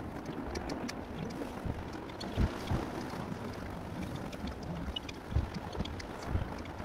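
Wind rumbling on the microphone in uneven gusts, with a few stronger low buffets and scattered faint ticks.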